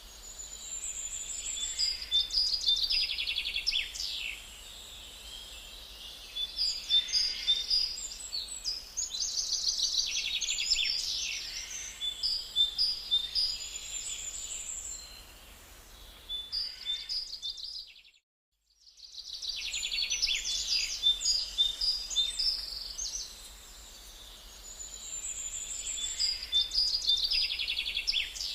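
Songbirds singing: high chirps and fast trills in repeated phrases. The sound cuts out briefly partway through.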